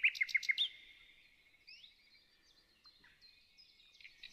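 Small birds singing: a quick run of loud high chirps in the first second, then fainter scattered chirps and whistles.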